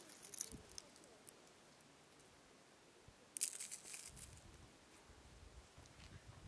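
Dry llama dung pellets crunching and crumbling between fingers: faint crackles near the start, then a louder brief crackle about three seconds in.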